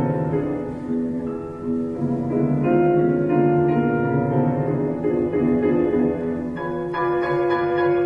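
Piano music with sustained notes and chords; higher notes come in about seven seconds in.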